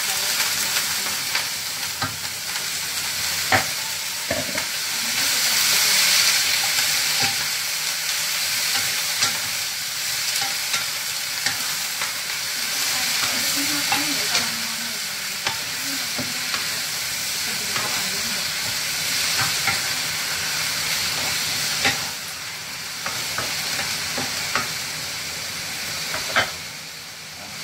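Chopped cabbage sizzling as it is stir-fried in hot oil with garlic and ginger in a wok, a steady hiss, with a wooden spatula scraping and knocking against the pan now and then.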